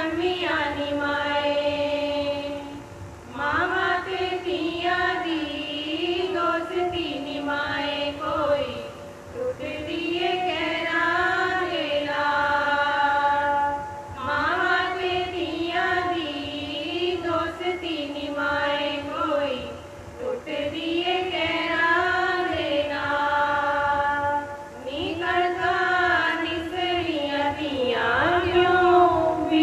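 Group of women singing a Punjabi suhag, a traditional wedding folk song, together. The same melodic line comes back in phrases of about five to six seconds, with short breaks between them.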